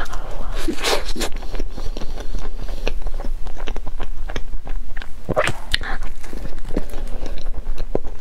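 Close-miked mouth sounds of a person biting and chewing soft mille-crêpe cake: irregular short clicks and smacks, with louder clusters about a second in and again around five and a half seconds.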